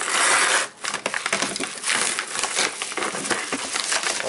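Padded paper mailer being slit open with a utility knife, a loud tearing rasp in the first second, then steady crinkling and rustling of the envelope as it is handled and opened.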